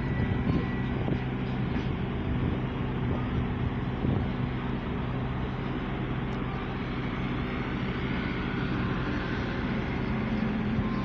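Street traffic noise: a steady low engine hum with the even rush of vehicles.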